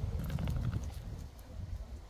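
Footsteps on a gravelly dirt path, with several quick steps in the first second, over a low rumble.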